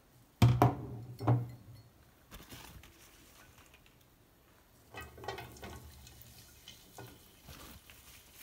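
Two loud knocks about half a second and a second in, then from about five seconds a light clatter and patter as green beans are tipped from a kitchen towel into a pan of hot vegetable oil.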